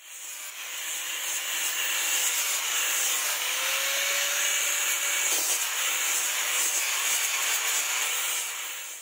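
Electric angle grinder with a sanding pad running steadily while it sands a wooden knife handle, the motor's whine mixed with the hiss of abrasive on wood.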